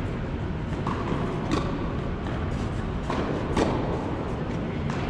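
Tennis rally in a large indoor hall: sharp racket-on-ball strikes, the clearest two about two seconds apart, with fainter ball bounces and footfalls over a steady low background noise.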